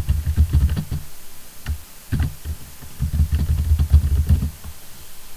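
Typing on a computer keyboard in quick runs of keystrokes, pausing briefly about a second in and again shortly before the last run, which stops a little before the end.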